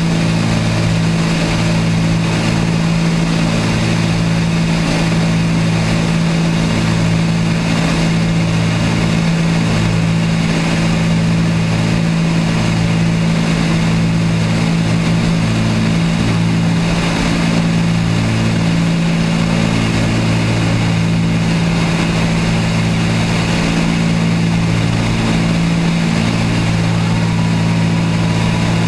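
Cabin sound of a Cessna 310's twin piston engines and propellers running steadily on the landing approach, with a slow throb about once a second over a rush of airflow noise.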